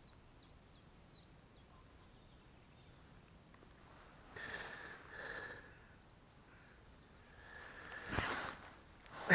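A small bird singing outdoors: a quick run of high, down-slurred chirps at the start and a softer high twitter later, over a quiet background. A couple of soft noises midway and a louder rustle just before the end.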